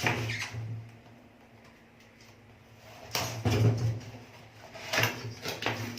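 Kitchen knife cutting open a cardboard box: scratchy scraping strokes, a pause of about two seconds, then several more short strokes near the end.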